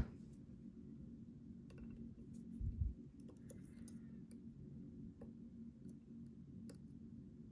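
Light metal clicks of lock-picking tools working in the keyway of a Schlage Primus Everest lock cylinder, a few scattered ticks with a dull low thump about three seconds in, over a steady low hum.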